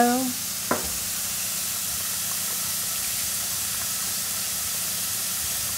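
Lionfish nuggets frying in hot canola oil in a pan: a steady sizzling hiss. A single light click about a second in.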